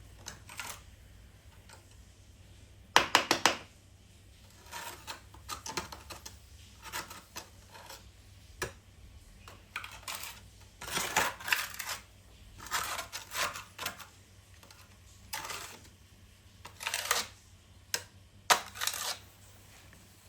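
Small hard objects clinking and rattling in irregular short clusters, the loudest about three seconds in.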